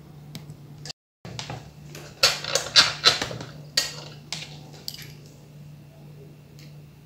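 Plastic and metal clicks and clattering knocks as a laptop's screen assembly is handled and fitted back onto the base at its hinges, most of them in a burst in the middle, over a steady low hum.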